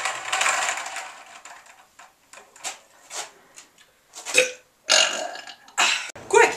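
A man burping: a burp trails off over the first second, a few faint clicks follow, and from about four seconds in come four short, loud burps, the last one with a wavering pitch.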